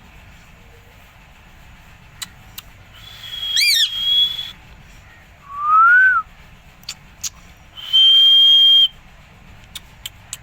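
Pet green parrot whistling three separate times: a high steady note with a quick up-and-down swoop in it, then a lower note that rises and falls, then a high steady note held for about a second. A few faint clicks fall between the whistles.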